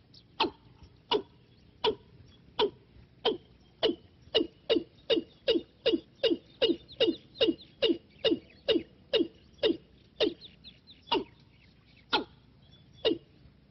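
Watercock calling a long series of short, deep, downward-sliding notes. The notes speed up to about three a second and then slow again near the end.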